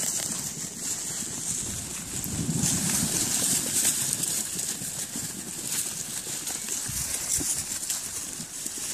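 A flock of ewes and lambs moving as a tight bunch: hooves shuffling and pattering on dry ground with rustling, over a steady high hiss.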